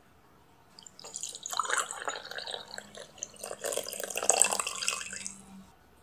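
Coffee poured from a glass drip-coffee-maker carafe into a mug, starting about a second in and stopping shortly before the end.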